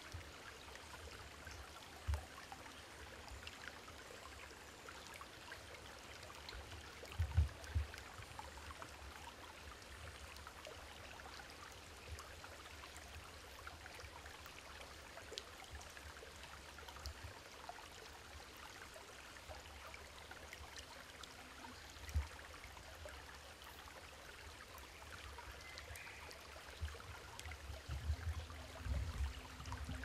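Faint ambience of a shallow forest stream, water trickling over rocks, with scattered small ticks. A few dull low thumps stand out: about two seconds in, a pair around seven to eight seconds, one around twenty-two seconds, and a cluster near the end.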